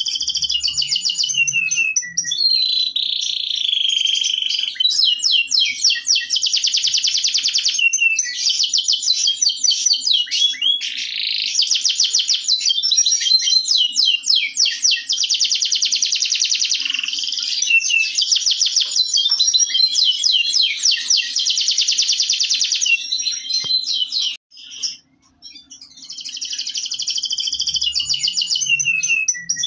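Local Indonesian domestic canary singing a long, high-pitched song of fast trills and rolling phrases, almost without pause, with one short break about 24 seconds in.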